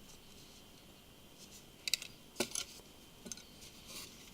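A few light, separate clicks and taps of small phone parts being handled during a smartphone teardown, starting about two seconds in.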